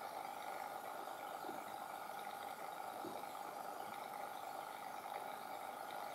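Handheld hair dryer running steadily: a constant rush of air with a steady motor whine.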